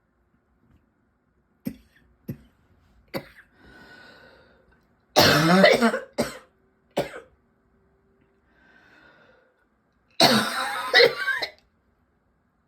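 A person coughing: three short sharp coughs, then two long, harsh coughing fits about five and ten seconds in, with faint breaths drawn between them. The sign of a persistent, tickly cough in the throat and lungs that will not stop.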